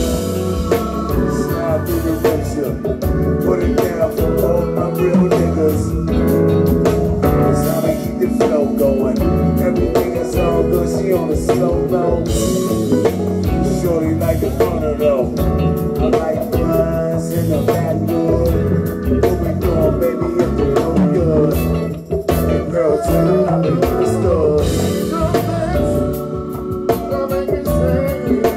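Live band music: drum kit and electric guitar playing continuously, with a woman singing into a microphone over them.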